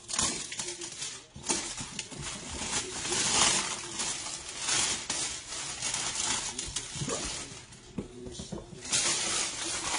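Cardboard box being handled and turned over, with clear plastic wrap crinkling and rustling on and off, and small knocks of the box against the desk.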